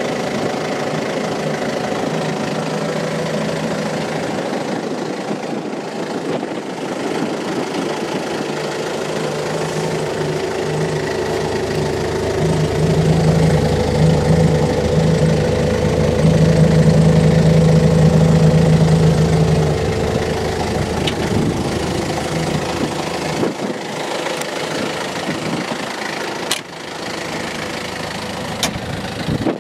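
Diesel engine of a 2010 Toyota 8FDJF35 3.5-tonne forklift running steadily at idle, growing louder for several seconds in the middle before settling back. Two sharp clicks near the end.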